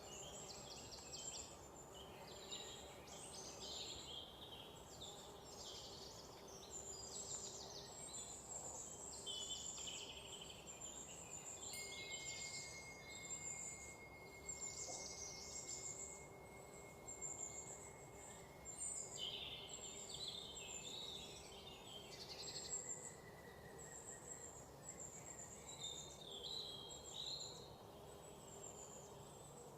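Faint bird chirping and trilling again and again over a low steady hum, with a long steady high tone in the middle.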